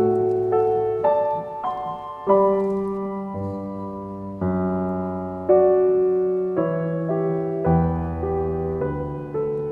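Background music: solo piano playing chords that change about once a second, each struck and left to fade.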